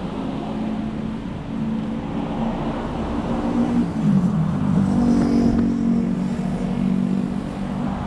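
Car engine running at low speed, its pitch dipping and then climbing about halfway through as the car pulls away.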